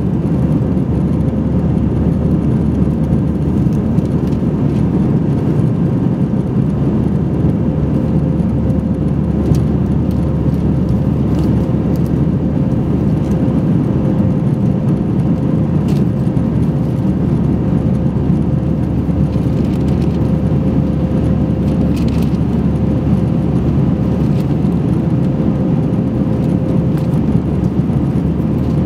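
Cabin noise of an Airbus A320-232 in the climb after takeoff: the steady roar of its IAE V2500 turbofan engines and the airflow, heard at a window seat over the wing, with a steady hum running through it.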